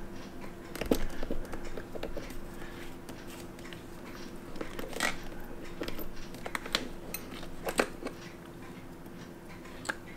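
Paper tissue rustling and crinkling, with scattered small clicks of a fine metal tool against a metal watch case, as tissue is worked into a chronograph pusher socket to clean it. A faint steady hum runs underneath.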